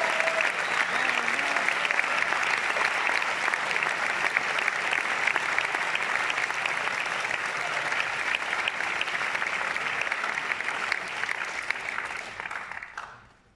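Concert audience applauding, a dense steady clapping that dies away near the end.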